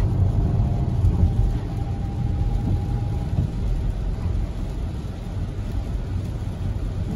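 Car driving on a rain-wet road, heard from inside the cabin: a steady low rumble of engine and tyres on wet pavement.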